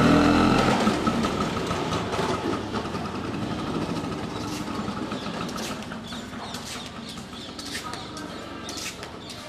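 A motor vehicle passing close by and fading away over several seconds. Short high bird chirps come through it in the second half.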